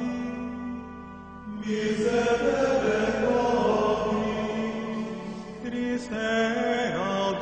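Vocal chant sung over a steady low held drone. One phrase fades about a second in and a new, louder phrase begins at about a second and a half.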